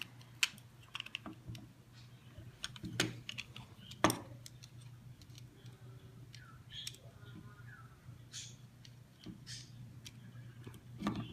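Scattered small clicks and taps of a Ruger SR9 pistol's parts being handled as a child tries to push a part through the frame, with the loudest click about four seconds in.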